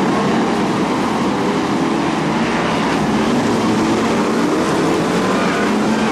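Several BriSCA F1 stock cars' V8 engines running together at racing speed, a loud, steady, dense engine noise with pitches wavering as the cars accelerate and lift around the oval.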